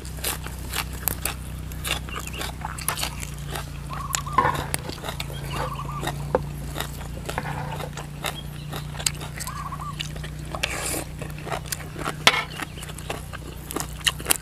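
People chewing and crunching raw green vegetable stalks and papaya salad close to the microphone: many short, crisp crunches and mouth clicks, over a steady low hum.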